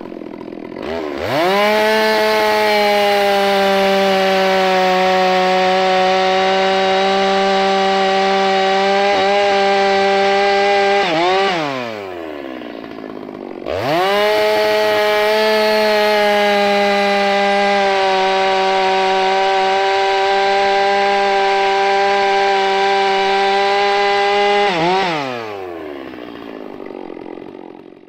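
Large 660-class two-stroke chainsaw with a 36-inch lightweight bar cutting through a log at full throttle, twice. It revs up about a second in and holds a steady high pitch through a cut of about ten seconds. It drops back toward idle, then revs again for another cut of about eleven seconds and winds down near the end.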